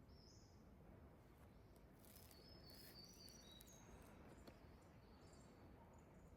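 Faint birdsong over quiet background hiss: scattered short high chirps and whistled notes, a few slightly rising or falling.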